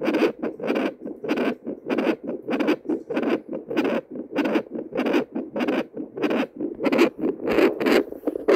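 Handheld pocket Doppler monitor picking up a heartbeat through its speaker: a steady run of rhythmic whooshing pulses, several a second.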